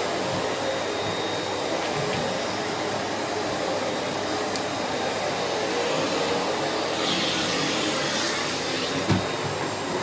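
Miele C3 canister vacuum cleaner running steadily, its floor head pushed over a hard tiled floor. The suction hiss brightens for a second or so about two-thirds of the way through, and there is a single thump near the end.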